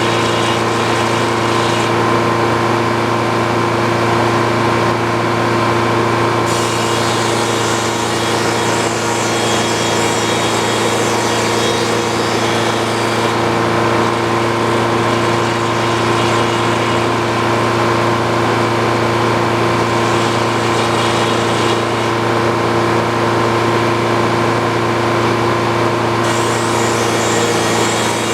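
Old Frick sawmill powered by a Detroit diesel engine, running steadily and loudly. A high hiss above the engine note grows louder and fades back several times, about six seconds in, again near the middle and near the end.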